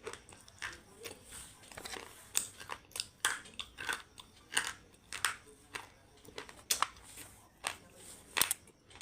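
Close-miked biting and chewing of a hard, brittle item: about a dozen sharp, irregular crunches, roughly one every half second to second.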